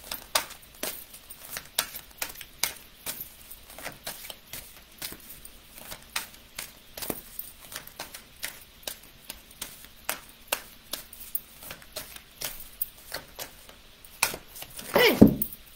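Deck of oracle cards being shuffled by hand: a run of quick, irregular clicks and slaps of card on card, several each second.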